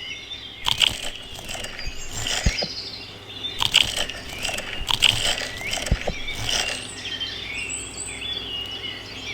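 Birds chirping in the background, with a scattered series of short clicks and knocks over a steady low hum.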